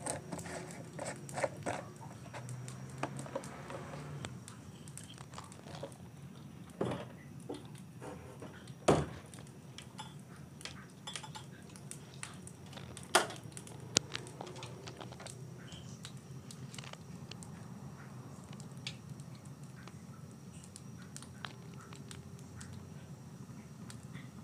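Gas burner running under a wok of heating cooking oil, a steady low background noise. Scattered light clicks and a few sharper kitchen knocks break over it, the loudest about nine seconds in and twice more a few seconds later.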